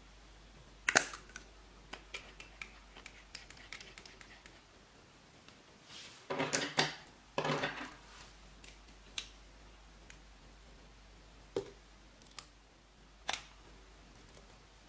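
A lipstick tube being handled and opened: a sharp click about a second in, a few light ticks, two short rubbing sounds around six and seven seconds in, then a few scattered clicks.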